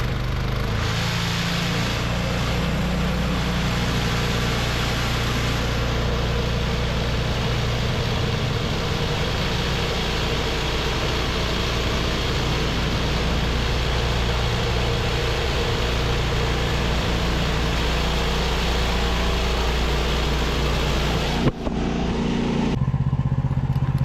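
Woodland Mills HM126 portable band sawmill's gas engine running under load as the band blade cuts through a red oak log. About three seconds from the end a sharp knock is heard and the cutting noise stops, leaving the engine running on its own.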